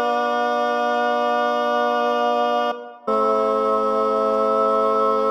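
Two sustained chords, one after the other, each held steady for nearly three seconds with a short break between: parallel triads from a Georgian chant, played in a seven-tone equal-tempered scale.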